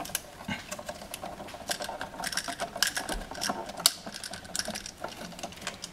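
Flat screwdriver poking into the release slot of a light switch's push-in terminal to free a wire: irregular small metallic clicks and scrapes against the plastic switch body as the wire is worked loose.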